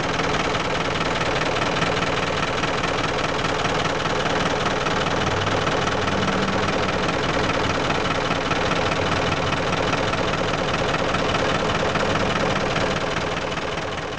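Ford Cargo 712 truck's diesel engine idling steadily.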